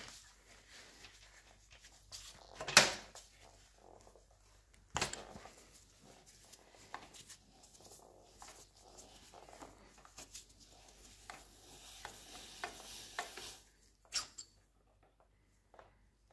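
Hand work on small metal parts of a milling machine's feed shaft: a steel cross pin being pushed out with a brass punch and a collar worked loose, with faint scraping and a few sharp metallic clinks. The loudest clink comes about three seconds in.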